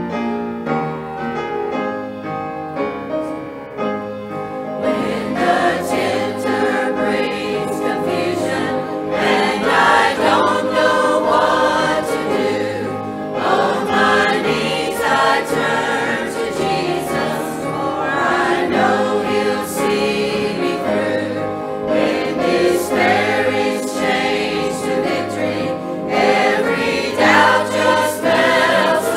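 Piano playing a hymn, joined about five seconds in by a group of voices singing along with it.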